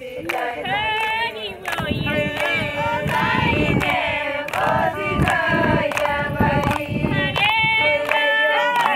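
A group of Maasai women singing together unaccompanied, with sharp clap-like strokes roughly once a second.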